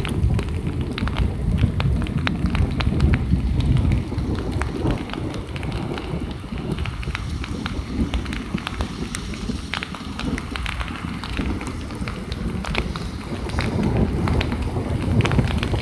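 Thunderstorm rain falling hard, with many sharp ticks of drops striking close by over a constant low rumble. It grows a little louder near the end.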